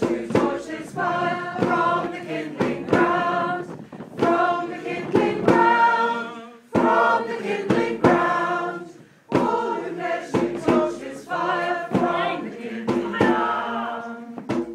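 A group of voices singing together in short phrases, with brief pauses between.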